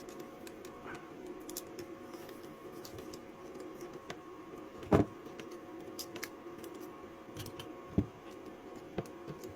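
Small handling sounds of adhesive tape being wrapped around a rebuilt lithium-ion battery pack: light crackles and taps, with a sharp knock about five seconds in and smaller ones near the end, over a steady faint hum.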